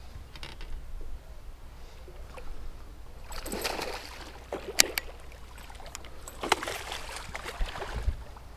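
Hooked largemouth bass splashing at the surface as it is reeled in beside the boat: a bout of splashing about three seconds in and another about six and a half seconds in, with a few sharp clicks.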